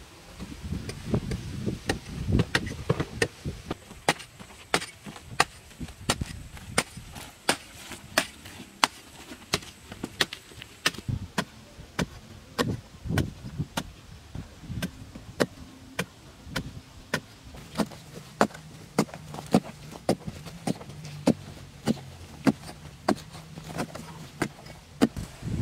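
A long-handled, metal-bladed digging tool chopping repeatedly into compacted earth, a sharp strike roughly twice a second.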